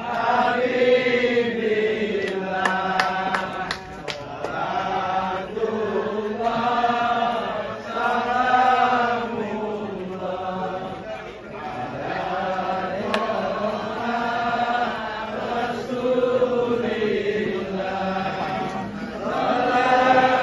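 A crowd of voices chanting together in unison, in long drawn-out phrases that follow one another every couple of seconds.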